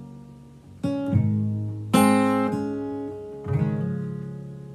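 Acoustic guitar playing the final chords of a song: four strummed chords, the loudest about two seconds in, the last one near the end left to ring and fade out.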